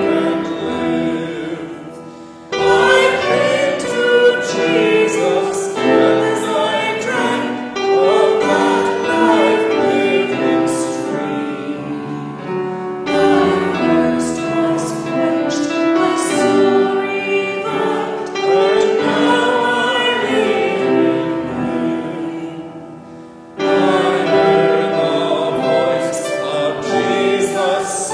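A church hymn sung by many voices together with accompaniment, in long sustained phrases. The singing fades twice, about two seconds in and again near twenty-three seconds, and comes back in strongly each time, like the start of a new line or verse.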